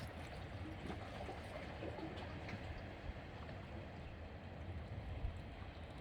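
Faint, steady low rumble of sea water washing at the shore, with a few light clicks.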